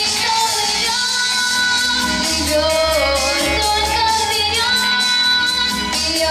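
A ten-year-old girl singing a pop song into a microphone over a recorded backing track with guitar and a steady bass beat, holding long notes with vibrato.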